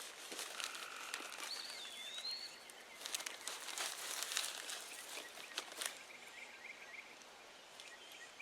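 Scattered scraping and rustling of soil as Yukon Gold potatoes are dug out, heaviest a few seconds in. A bird whistles a rising-then-falling note early on and a quick faint trill runs near the end.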